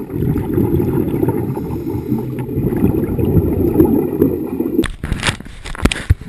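Scuba diver's regulator exhaust bubbles heard underwater: a loud, dense, low bubbling rumble. About five seconds in it stops abruptly and gives way to a few sharp knocks in open air.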